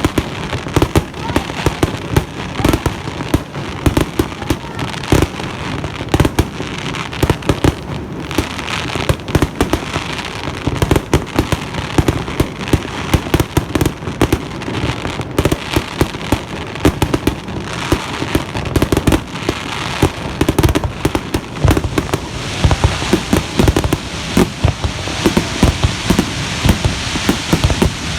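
Fireworks display heard close to the launch site: a dense, unbroken barrage of loud bangs and booms, several a second, over continuous crackling.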